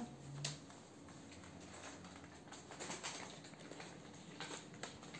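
Faint, scattered light clicks and taps in a quiet room.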